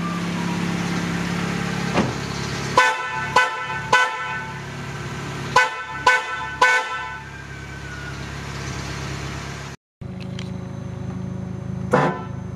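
A pair of newly fitted Dr.D.Fischer snail car horns sounded in short toots, several pitches at once: single beeps, then quick doubles and triples. After a brief break near the end, the toots start again.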